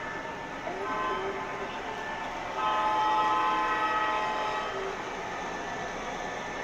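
O-gauge model locomotive's onboard sound system sounding its horn: a short blast about a second in, then a louder blast of about two seconds, over the steady running noise of the train on the track.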